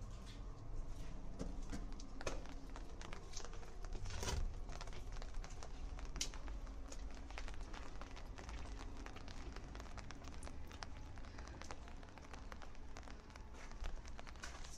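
Town street ambience: a low steady rumble with many scattered, irregular taps and clicks.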